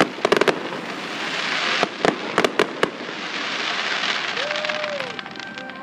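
Aerial fireworks going off: sharp bangs and pops, a quick cluster at the start and several more in the next three seconds, over a steady hiss. A brief tone rises and falls about four and a half seconds in.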